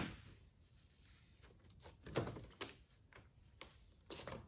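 Soft handling sounds of paper joint tape being worked by hand: a few brief rustles and light knocks, the clearest about two seconds in, against quiet room tone.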